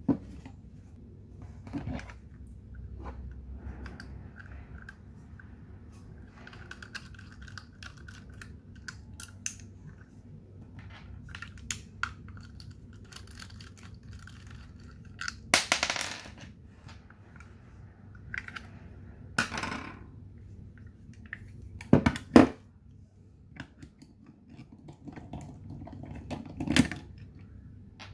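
Handling and taking apart the frame of a Colt 1911 CO2 BB pistol: small clicks, scrapes and taps of plastic and metal parts, with several louder knocks and clatters in the second half as the grip screws are undone with a screwdriver and set down on the table.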